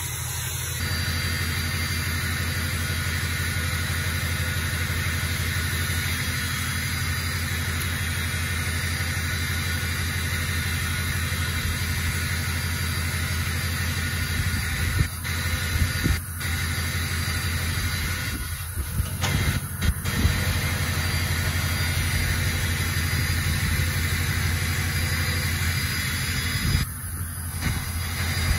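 Engine running steadily with a low, even drone while the machine takes up the load, with a few brief bumps in level partway through and near the end.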